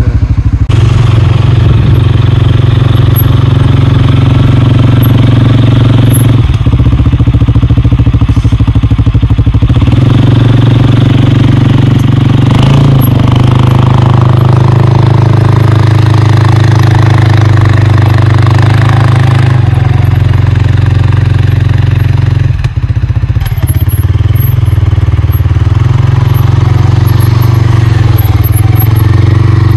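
2020 CFMOTO CForce 450L ATV's single-cylinder engine running steadily, with a few small shifts in pitch.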